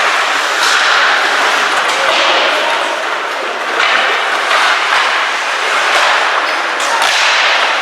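Ice hockey skate blades scraping and carving across the ice in repeated swishes, with an occasional knock.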